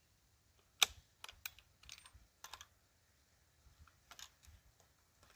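A series of light, sharp clicks and taps, about seven spaced irregularly, the first about a second in the loudest.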